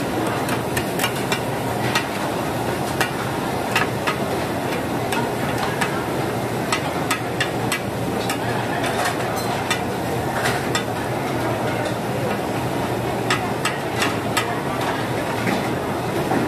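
Metal spatulas clinking and scraping against a large iron griddle, with many short sharp clacks scattered through, as Taiwanese oyster omelettes are cut apart and shaped. Under it, a steady sizzle of the omelettes frying.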